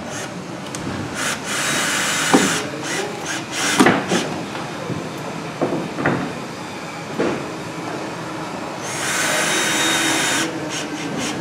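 Cordless drill driving screws through a plastic outlet box into a wooden stud, running in two short spells, one about a second in and another near the end. Short knocks and clicks of handling come between the two spells.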